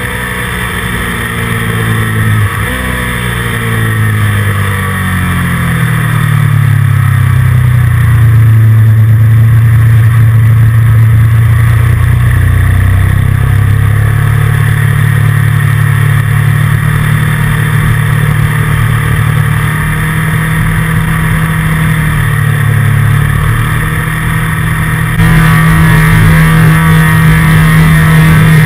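Motorcycle engine and wind noise picked up by a camera mounted on the bike. The engine note falls over the first several seconds as the bike slows, then holds steady with a slight rise, and the sound changes abruptly near the end.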